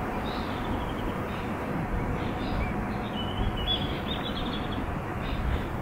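Outdoor background: a steady low rushing noise, with small birds chirping briefly several times over it.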